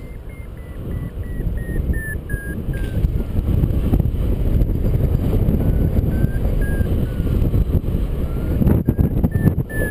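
Wind rushing over the microphone in flight under a paraglider wing, with a variometer's short electronic beeps over it. The beeps fall in pitch over the first few seconds, fade, then return and waver up and down near the end. Their pitch follows the rate of climb.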